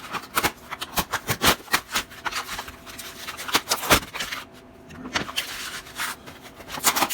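Retail tool packaging being handled and opened by hand: irregular rustling, scraping and sharp clicks, with a brief lull a little past the middle.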